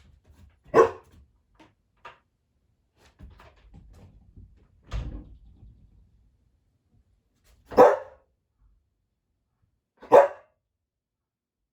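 Samoyed dog barking: three loud single barks a few seconds apart, with a softer, lower woof in between and faint small shuffling sounds.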